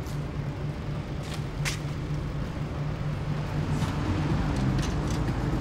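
Steady low engine hum, with a few short hisses over it.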